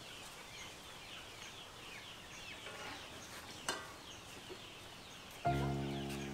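Quiet outdoor ambience with small birds chirping, one sharp knock a little past halfway, then steady held notes of background music starting near the end.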